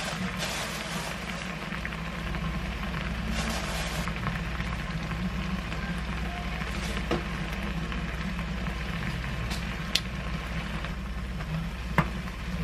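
Spicy braising sauce bubbling and sizzling in a frying pan on a gas stove, a steady crackling simmer over a low hum. A sharp click sounds about ten seconds in and another near the end.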